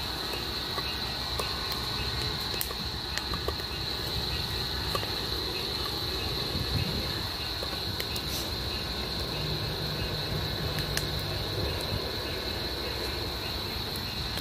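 Steady high chorus of night insects, with scattered crackles and pops from a burning log fire.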